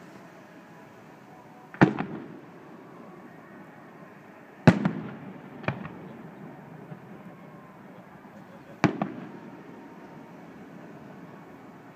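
Aerial fireworks shells bursting: three loud booms about two, five and nine seconds in, and a fainter one about six seconds in, each followed by a short echo.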